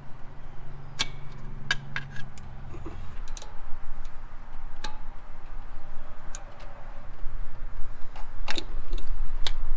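Scattered light clicks and ticks of hands and pliers working small hose clamps and rubber vacuum hoses off a boost control solenoid in an engine bay, over a steady low rumble.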